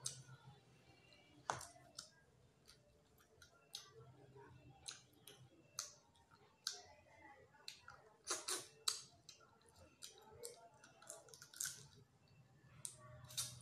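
Eating with the fingers: soft, irregular wet clicks and smacks of lips, tongue and fingers as food is picked up, chewed and fingers are sucked, with a denser run of louder smacks about eight seconds in.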